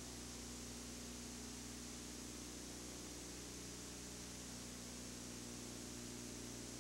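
Steady faint hiss with a low electrical hum beneath it: the background noise of an analog videotape's audio track, with no programme sound.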